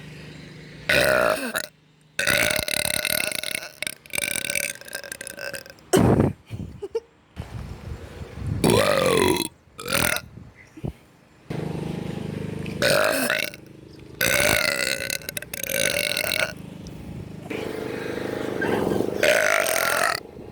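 A girl burping loudly, a string of about eight burps in a row. Some are short, others long and drawn out with a bending pitch.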